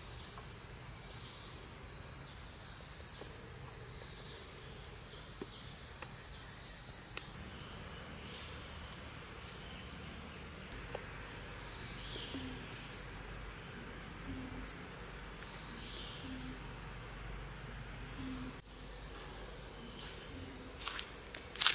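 Insects in the forest making a steady high-pitched drone that cuts off about ten seconds in, leaving fainter high insect calls. In the second half a soft low call repeats about once a second.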